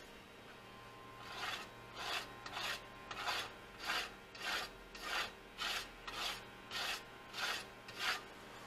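A hand rubbing back and forth across a 3D printer's print-bed surface with a scratchy, rasping sound, about a dozen even strokes at just under two a second, starting a second or so in.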